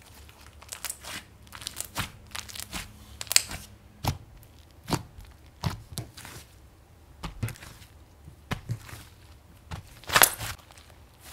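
Thick, puffy slime being stretched and then pressed and poked with the fingertips, giving irregular sticky pops and crackling, sizzly sounds. The loudest crackle comes about ten seconds in.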